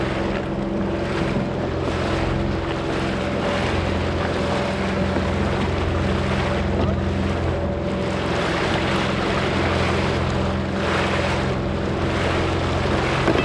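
Jet ski engine running at a steady, low pitch, with wind buffeting the microphone and water rushing.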